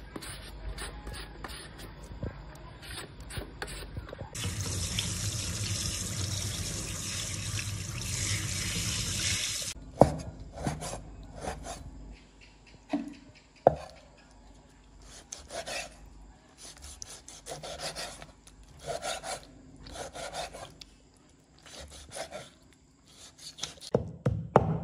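Green papaya being shredded with a hand shredder, a run of quick rasping strokes, followed by a tap running water into a sink for about five seconds. Then raw pork being handled on a wooden chopping board with a few sharp knocks and short scrapes, and a cleaver starting to chop rapidly right at the end.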